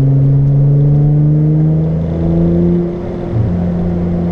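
Exhaust note of a straight-piped Hyundai Tiburon heard from inside the cabin, the engine pulling with its pitch slowly rising for the first two seconds or so. About three seconds in the note breaks off and dips briefly, then settles into a steady, lower cruise.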